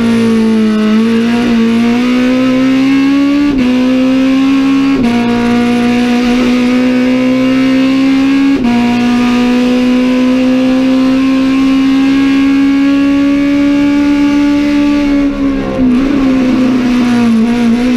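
Race car engine at high revs, heard from inside the cockpit, pulling hard through the gears: three quick upshifts in the first half, each dropping the pitch before it climbs again. Near the end the revs fall as the car slows, with a couple of short blips on the downshifts.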